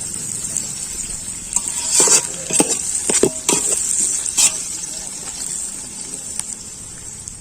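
Food sizzling as it fries in hot oil in a cooking pot, with a ladle stirring and scraping against the pot in several quick strokes from about two seconds in.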